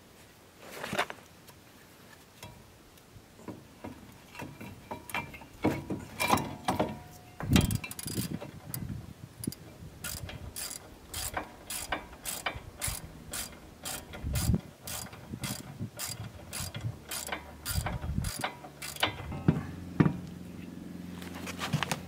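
Socket ratchet clicking in a steady run, about three clicks a second, as bolts at a truck's front wheel hub are worked during a wheel bearing replacement, with scattered metal clanks of tools and parts before it. A low steady hum comes in near the end.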